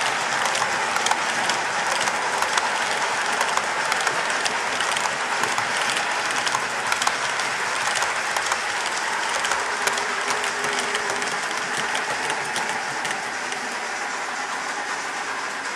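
Model train passenger coaches rolling past on the track, their wheels rattling and clicking rapidly and irregularly over the rails. The sound eases off a little near the end as the train moves away.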